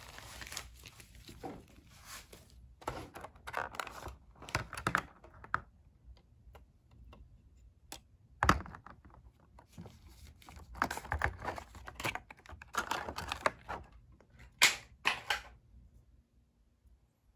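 Clear plastic wrapping and a plastic clamshell tray crinkling and rustling under handling, broken by sharp plastic clicks and knocks, the loudest about halfway through.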